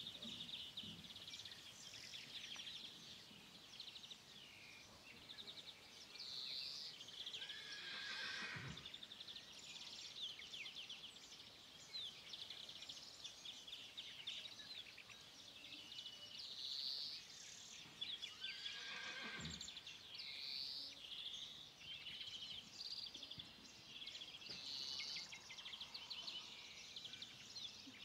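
A horse whinnies twice, about ten seconds apart, each call sliding down in pitch. Between and under the calls there is a constant faint chatter of birds.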